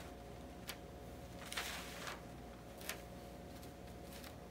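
Faint handling noise of clear plastic hotfix transfer tape being shifted and smoothed on a cotton T-shirt: a few soft crinkles over a steady low hum.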